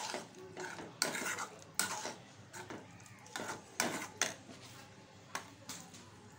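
Metal spoon stirring a thick spinach and potato curry in a steel pot, knocking and scraping against the pot's sides in about seven sharp, irregular clinks.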